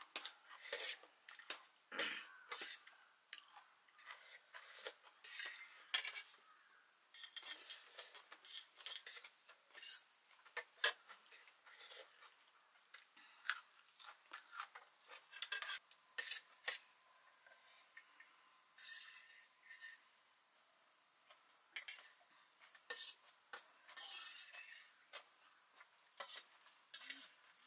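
Metal spoons and forks clicking and scraping against steel plates as noodles are eaten, in short irregular clinks.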